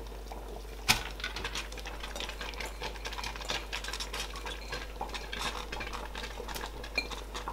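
Chopped okra tipped from a bowl into a pot of simmering soup, with a sharp knock of bowl on pot about a second in, then a steady run of small clicks and taps as the bowl is handled over the pot.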